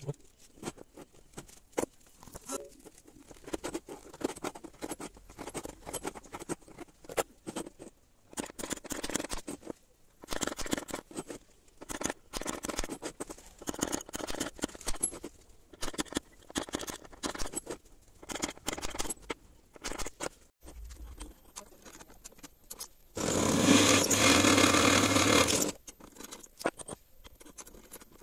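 Steel strips and hand tools scraping and clicking against a wooden workbench as pieces are measured and handled. Near the end, an electric drill runs steadily for about three seconds, boring into a rusty steel strip clamped in a drill vise.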